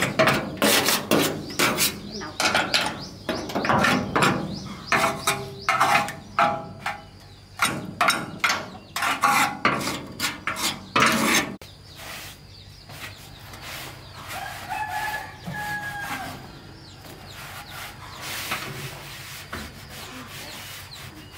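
Quick run of scraping and knocking strokes from hand-tool work on the machine for about the first twelve seconds, then quieter. Chickens call through it, and a rooster crows once about fifteen seconds in.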